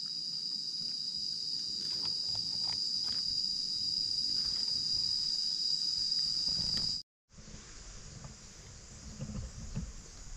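Forest insects droning with one steady, high-pitched tone, cut off abruptly about seven seconds in. A softer insect hiss follows, with rustling footsteps in dry leaf litter near the end.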